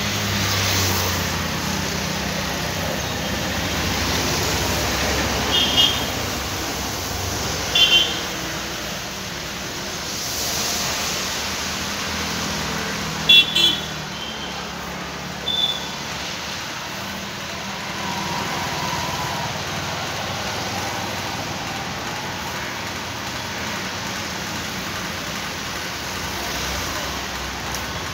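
Steady background traffic noise, with several short high-pitched beeps standing out above it, the loudest a quick double beep about 13 seconds in.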